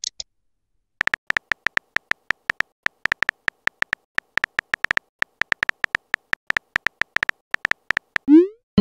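Simulated phone-keyboard typing clicks: a long run of short, high ticks at an uneven typing pace. Near the end comes a quick rising swoosh.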